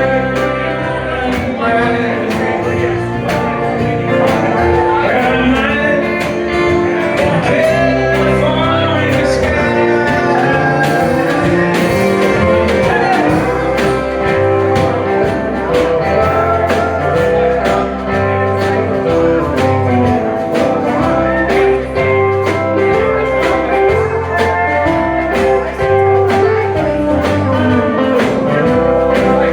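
A country band playing live, with a steady beat and a walking bass line under the guitar.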